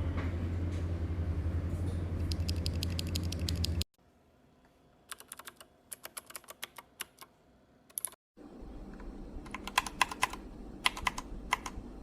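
Keystrokes on a mechanical keyboard fitted with Gateron or Leobog switches, typed in three short runs of clicks separated by sudden cuts. A low hum runs under the first and last runs.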